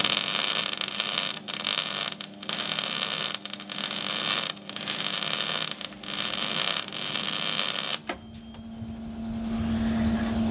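MIG welder arc crackling as a bead is laid overhead on a steel boat hull plate, with several brief breaks, cutting off about eight seconds in. A steady hum follows.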